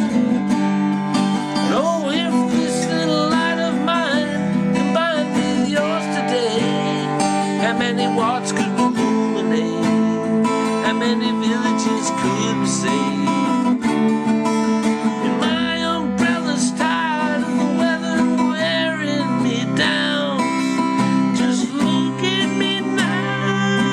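Lyon & Healy steel-strung parlor acoustic guitar playing an instrumental passage between sung verses, with chords underneath and a wavering melodic line above.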